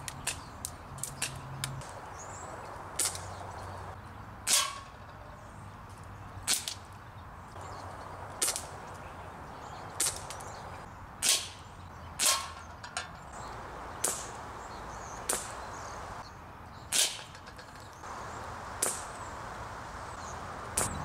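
Pistol fired again and again: about a dozen sharp single shots, one every second or two.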